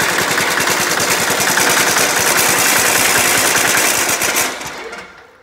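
A 196cc single-cylinder four-stroke diesel engine running fast with a loud, rapid clatter of firing pulses. About four and a half seconds in it stops and dies away within a second.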